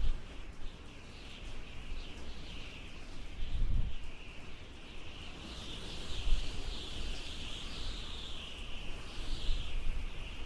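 Birds chirping in a continuous, overlapping chorus over a low rumble that swells now and then.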